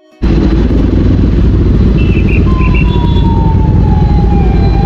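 Kawasaki ZX-10R inline-four engine idling with a steady low rumble. From about halfway in, an ambulance siren wails in the distance, its pitch sliding slowly down.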